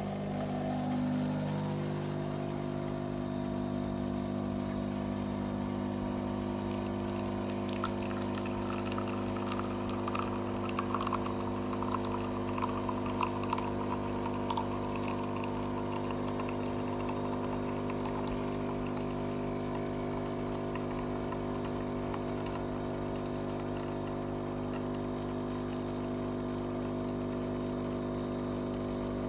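De'Longhi Eletta Explore automatic coffee machine dispensing a drink: its pump hums steadily from a sudden start, with liquid pouring and splashing into the cup, heaviest in the middle stretch.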